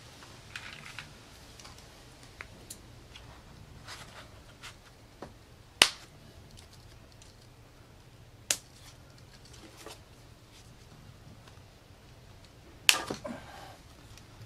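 Plastic zip ties being worked and pulled tight around a foam float on a fiberglass pole: scattered faint ticks and rustles, with a sharp click about six seconds in, another about two and a half seconds later, and a short cluster of clicks near the end.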